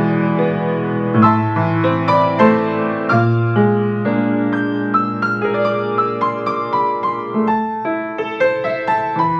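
Piano playing an instrumental piece: a melody over held chords and bass notes.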